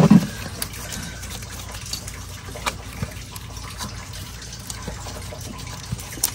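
Gloved hands handling parts in an engine bay around the ignition coil packs, making a few light scattered clicks over a steady background hiss.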